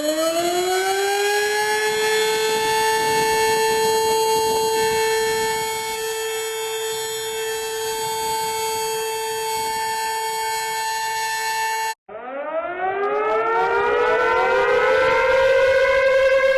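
Civil defense warning siren holding a steady wail after winding up, cut off abruptly about twelve seconds in. A second wind-up follows at once, several tones rising together and levelling off near the end.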